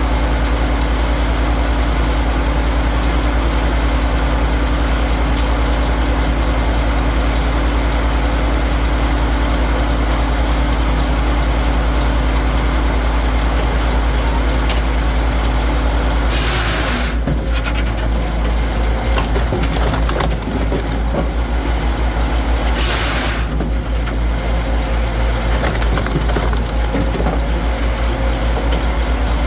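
Firewood processing machine's engine running steadily, then labouring under load about halfway through, with two short loud bursts of noise in the second half.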